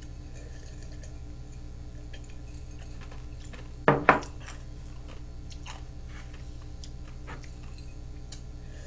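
Ceramic mug set down on a table: two quick knocks about four seconds in, with faint small clicks and a steady low hum.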